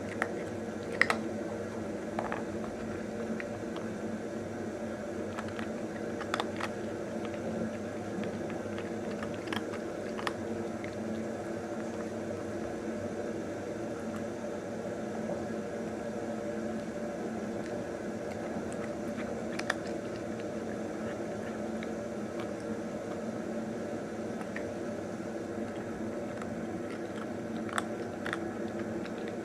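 A cat eating dry kibble: scattered sharp crunches, a few seconds apart, over a steady low hum.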